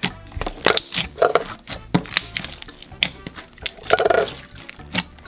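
Clear green slime mixed with foam beads being squished and kneaded by hand, giving irregular sharp crackles and pops.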